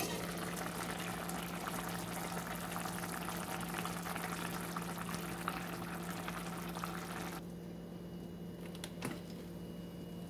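Chicken adobo bubbling and spitting at a simmer in a stainless pot, with a knock as the glass lid is lifted at the start. The bubbling cuts off suddenly about seven seconds in, leaving a steady low hum and a couple of clicks near the end.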